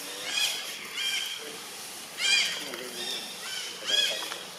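Long-tailed macaque calls: about five short, high-pitched arched cries in a row, each bending up and down, the loudest a little past two seconds in.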